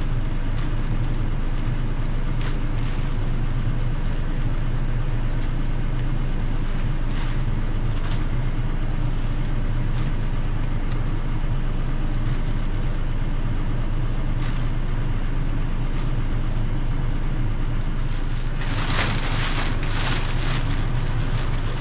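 A car engine idling steadily. Near the end a black plastic bag rustles loudly for a couple of seconds as it is handled.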